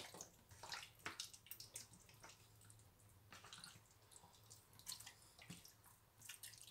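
Faint, irregular wet squelches and smacks of bare hands rubbing a thick spice marinade into raw chicken pieces in a plastic bowl.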